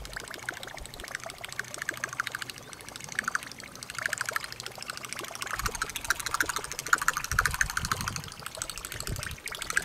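Buzzbait retrieved across the water surface, its spinning blade churning the water in a rapid, fluttering gurgle of splashes and ticks.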